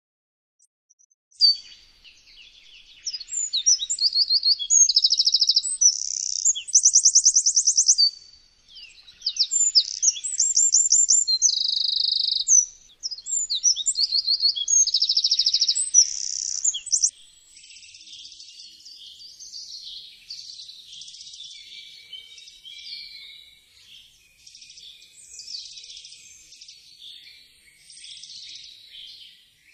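Eurasian wren singing: a loud, high song of rapid trills and buzzy note runs starting about a second and a half in and running for about fifteen seconds, then fainter, scattered high twittering.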